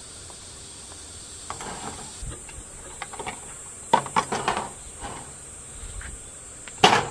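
Insects chirring steadily in a high even drone, over a few knocks and clatters of tableware being handled, with one louder knock near the end.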